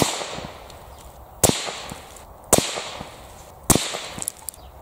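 Accuracy International AT-X rifle in 6.5 Creedmoor firing a string of shots, about one every second and a bit, each a sharp crack followed by a short echoing tail.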